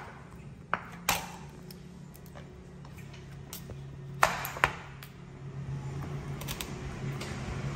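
A kitchen knife slicing through soft steamed pumpkin and knocking on an end-grain wooden cutting board: a few sharp knocks with a short ring, over a steady low hum.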